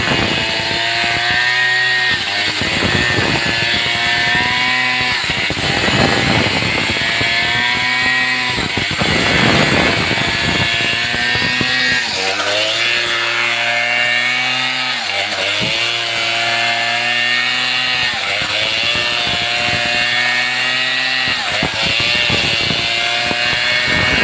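Stihl chainsaw running at high revs while cutting through a jackfruit tree. Its engine pitch sags several times as the chain bites and the load rises, then climbs back.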